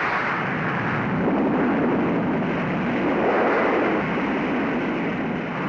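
Heavy rain pouring down in a steady, loud rush that swells and eases slightly.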